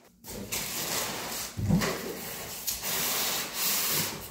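Foam and cardboard packing rubbing and scraping as a TV is unpacked, in uneven bursts, with a knock about a second and a half in.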